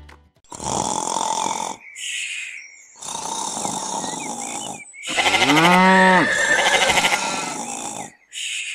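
Several short bursts of hissing noise, then a loud, long bleat-like cry that rises and falls in pitch over a hiss.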